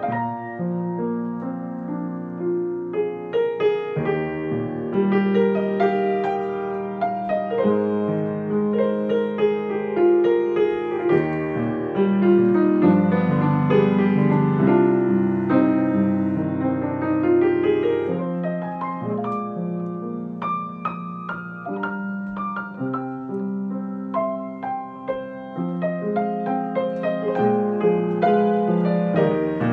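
Solo grand piano played with both hands: a flowing piece with a melody over moving bass notes. It gets louder about twelve seconds in and softer again a little past twenty seconds.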